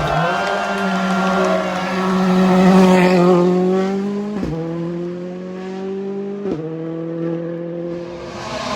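Rally car engine at high revs, accelerating with two quick upshifts, one about halfway through and another about two-thirds through, its pitch dropping at each shift, and getting quieter as the car pulls away.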